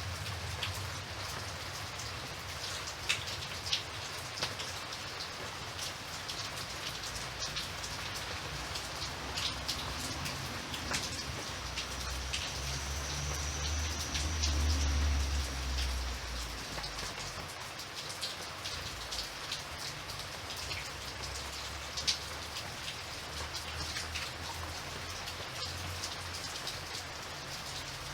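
Steady rain falling, a constant hiss with the sharp ticks of individual drops striking a surface. A low rumble swells and fades about halfway through.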